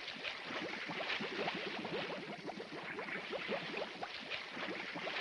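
Molten lead bubbling in an iron pan over a log fire, an animation sound effect: a dense, steady run of quick rising blips with a hiss above them.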